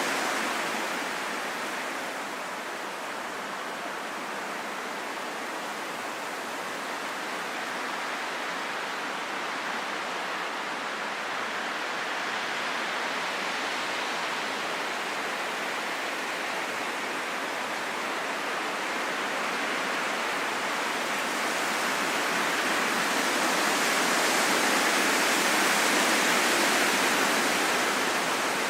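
Wind blowing as a steady rush that dips a few seconds in, then swells to its loudest near the end.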